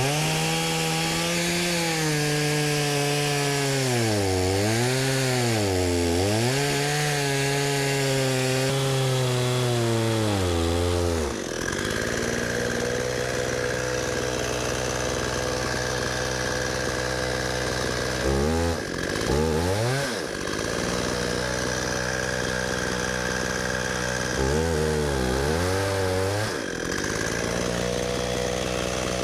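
Two-stroke chainsaw on an Alaskan chainsaw mill ripping a pecan log, its engine speed wavering and dipping under the load of the cut. About eleven seconds in, the engine drops to a lower, steadier speed, with two short revs later on.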